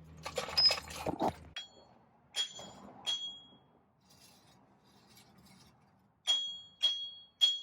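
Metal-on-metal work at a Jeep Wrangler JK's front wheel hub as the last hub-to-spindle bolt comes out. First comes a brief rattle of clicks; then come sharp, ringing metal clinks in two groups of about three, like a loose bolt or wrench knocking against the steel hub and knuckle.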